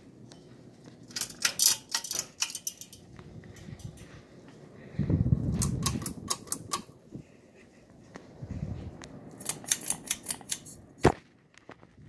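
Ceiling fan pull chains rattling and clicking in several short bursts as they are tugged, ending with one sharp pull-chain switch click about eleven seconds in as the light goes off.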